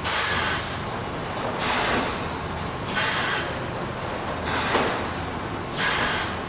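Industrial machine running steadily, with short blasts of compressed-air hiss repeating about every one and a half seconds, five times, as its pneumatics cycle.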